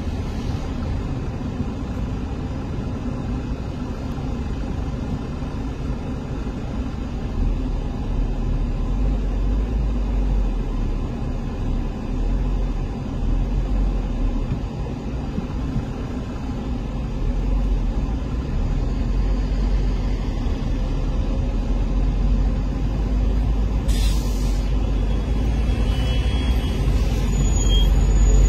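A car driving slowly through city traffic: a steady low road and engine rumble. About 24 seconds in there is a brief hiss, fitting a nearby bus's air brakes.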